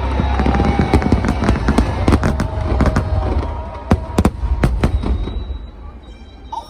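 Fireworks bursting in rapid succession, many sharp bangs over a low rumble, with music underneath; the bangs die away about five seconds in.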